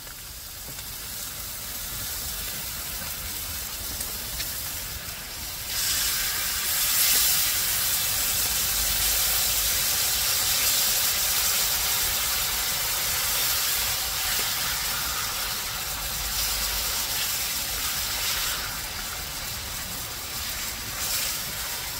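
Basting sauce sizzling and bubbling on grilling eel, a steady hiss that gets louder about six seconds in and eases off again a few seconds before the end.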